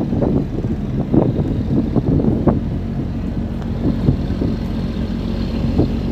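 Large river passenger ship's diesel engine running with a steady low hum, while wind buffets the microphone in irregular gusts.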